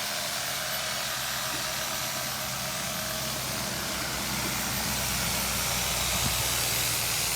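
Chainsaw running steadily, with a constant hiss, growing slightly louder about five seconds in.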